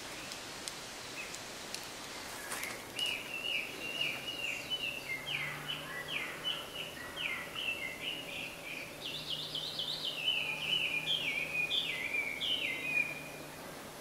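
A songbird sings a long, unbroken run of quick repeated notes, two or three a second, for about ten seconds. It starts a couple of seconds in and stops near the end, over a faint low hum.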